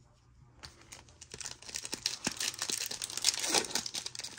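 Foil wrapper of a 2023 Donruss Optic trading-card pack crinkling and tearing as it is opened. It starts under a second in as many small crackles and grows louder and busier.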